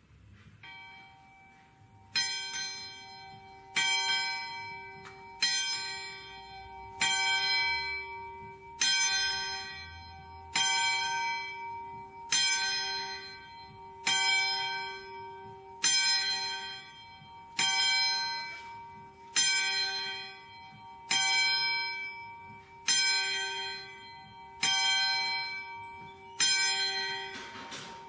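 A single church bell tolling at a slow, steady pace, about one stroke every second and three quarters. Each stroke rings on and fades before the next. The first stroke is faint, and full strokes begin about two seconds in.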